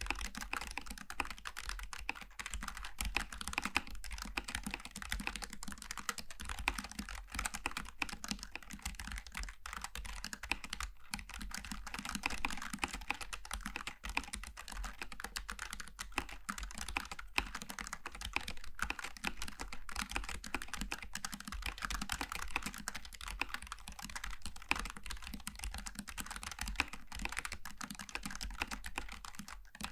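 Fast, continuous typing on a Logitech G915 TKL low-profile mechanical keyboard with GL Tactile switches: a dense, unbroken stream of key clicks.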